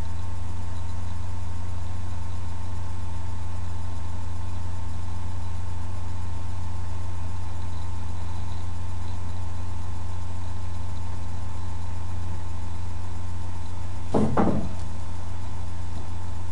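Steady low hum with a faint steady higher whine above it, unchanging throughout. About fourteen seconds in, a brief short voice sound cuts across it.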